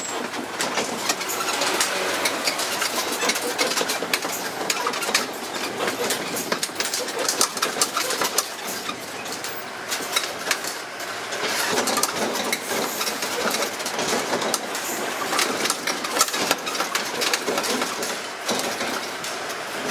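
Tourist road train rolling slowly, its engine running while the open carriages rattle, with many small clicks and knocks.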